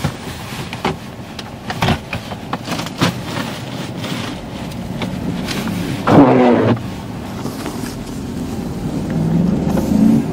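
A 4x4's engine revving while the vehicle is stuck in snow, with a loud short burst about six seconds in and a rising rev near the end.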